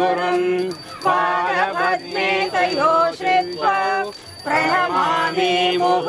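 Devotional arati singing in short phrases over a steady drone, with a bell ringing, accompanying lamp-waving worship.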